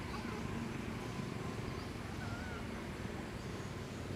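Steady low outdoor rumble, with a faint, short, wavering chirp about two seconds in.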